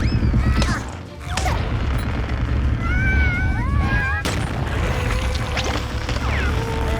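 Cartoon soundtrack: busy background music with slapstick sound effects, including a couple of sharp crash-like hits and short sliding squeaky tones.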